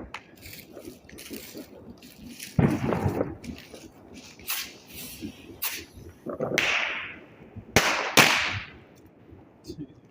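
Irregular sharp bangs of New Year's midnight celebration explosions, firecracker-like and each trailing a short echo. The loudest come about two and a half seconds in and a pair comes near eight seconds.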